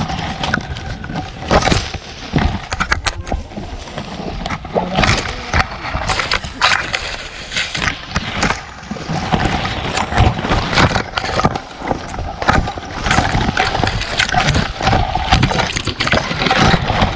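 Leaves and twigs of a custard apple tree rustling and crackling with frequent irregular knocks as branches are handled and pulled about during fruit picking.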